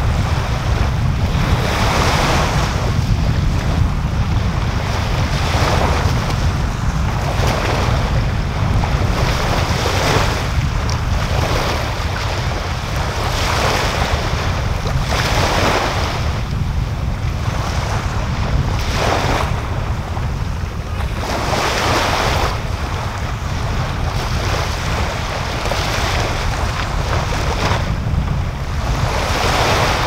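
Small waves washing up onto a sandy beach every few seconds, each one swelling to a hiss and falling back, over a steady low rumble.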